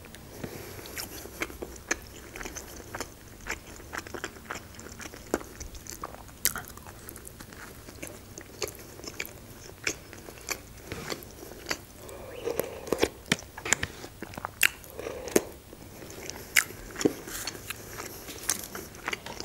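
Close-miked eating sounds of a person chewing and biting food. Many short, irregular wet mouth clicks and smacks, with a few crunchy bites.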